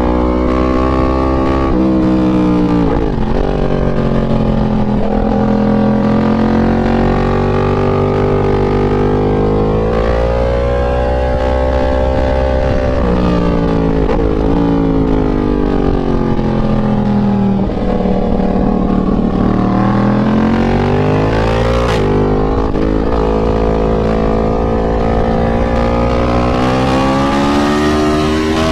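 Yamaha MT-10's crossplane inline-four engine heard on board at speed, revs climbing in long pulls and dropping away sharply several times through gear changes and corner entries.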